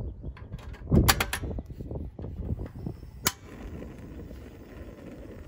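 Portable butane cartridge stove being lit: the ignition knob is turned, giving a thump and a quick run of clicks about a second in, then one sharp igniter click a little after three seconds. Wind rumbles on the microphone.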